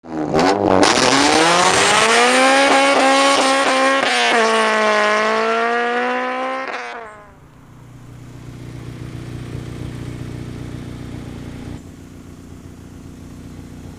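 Car engine revving hard, its pitch climbing, with a brief dip about four seconds in. The sound drops away sharply about seven seconds in, leaving a quieter, steady low engine running.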